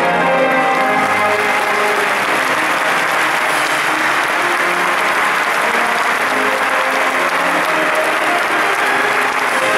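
Large audience applauding in a big hall. An orchestra's held chord dies away as the clapping sets in, and faint orchestral notes carry on underneath.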